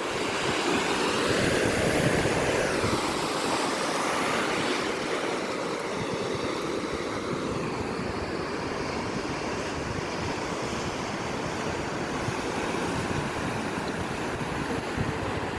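Ocean surf washing onto a beach, with wind buffeting the microphone. The wash swells louder over the first few seconds, then settles to a steady roar of surf.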